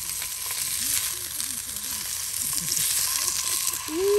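Tempura frying in hot oil: a steady crackling sizzle, with faint voices underneath. A strong, steady pitched tone comes in just before the end.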